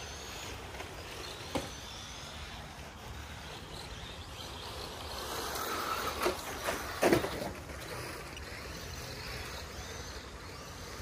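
Electric 1/10-scale RC rally cars passing close on a loose dirt track: motor whine and tyre noise swell up about five seconds in. Two sharp knocks near the loudest point, a second apart, come as the cars run past.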